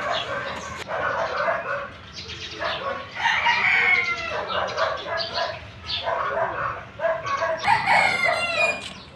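Rooster crowing amid other chicken calls: a long crow about three seconds in and another near the end, with shorter calls between.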